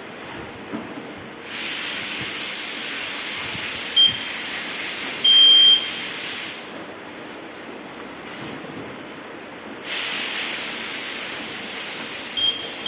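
Wireless interlinked smoke alarm giving short high-pitched beeps: a brief chirp, a louder, longer beep about a second later, and another beep near the end. Under them, two stretches of steady hiss start and stop abruptly.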